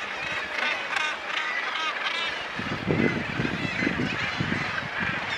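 A cliff seabird colony with many birds calling at once in a dense, overlapping din of high, rising-and-falling cries. A run of low, rough sounds comes through about halfway in.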